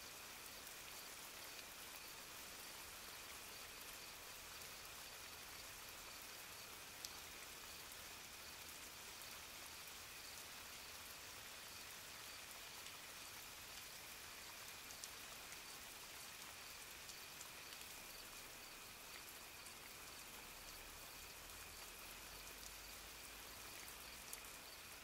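Faint, steady rain ambience with a few isolated soft ticks, like single drops.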